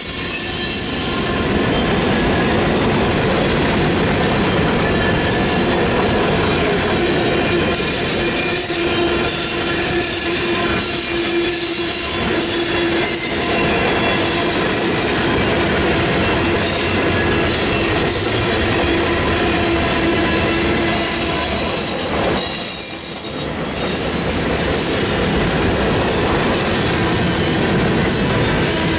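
Freight cars of a mixed freight train rolling past, a steady rush of wheels on rail with high-pitched wheel squeals that come and go; briefly quieter about two-thirds of the way through.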